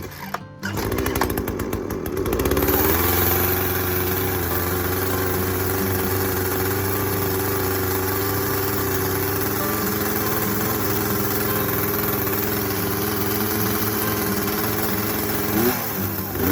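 Two-stroke chainsaw engine starting up about a second in, then running at a steady speed; its pitch shifts near the end.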